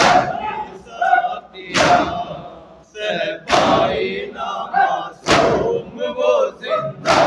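Mourners beating their chests in unison (matam): five sharp slaps about every 1.8 seconds. Between the slaps, men's voices chant a noha lament.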